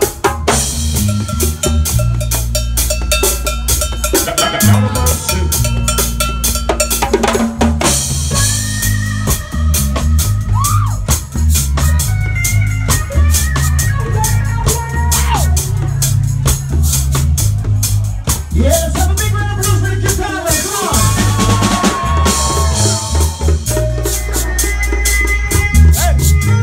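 Live reggae band playing: drum kit with rimshots and bass drum over a heavy bass line, with electric guitar.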